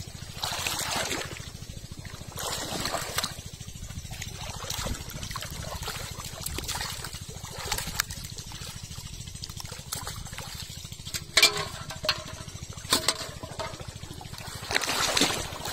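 Pond water sloshing and splashing in repeated swells every second or two as someone wades through it pushing a large aluminium pot, with a couple of sharp knocks in the last third.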